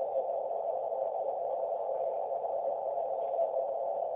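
Interference noise from a WinKeyer USB Morse keyer heard through an Icom IC-706 HF transceiver's speaker with the narrow CW filter on: a steady hiss in a narrow band. It is the noise the keyer puts into the receiver after a speed change over its USB serial link.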